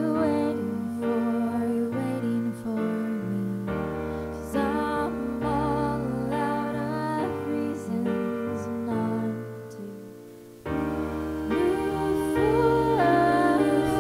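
Slow, sustained piano chords played on a Nord stage keyboard, with a woman singing a wavering melody over them. About ten seconds in the chords die away almost to nothing, then a fresh chord is struck and the singing picks up again louder.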